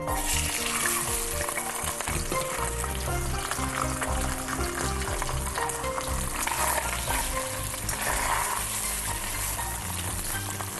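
A whole fish sizzling in hot oil in a wok, the sizzle starting suddenly as the fish goes in and running on steadily while it is shallow-fried, over soft background music.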